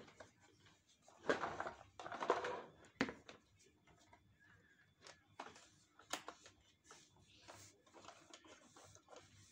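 Handling noises from a dismantled vacuum cleaner's plastic housing and wiring: scattered clicks, knocks and scraping, loudest in two short scraping stretches in the first three seconds followed by a sharp click, then lighter clicks. The motor is not running.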